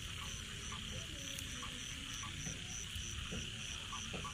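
Night chorus of crickets and frogs: one insect chirps in an even pulse about three times a second over a steady high insect hiss, with short frog calls now and then.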